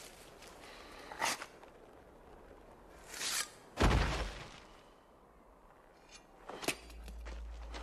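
Sparse film sound effects: a short swish, then a heavy low thud just before the midpoint. A sharp click comes near the end, and a steady low rumble starts under it.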